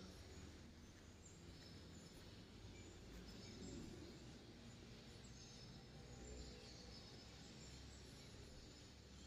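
Near silence: faint outdoor background with a low steady rumble and scattered faint high chirps.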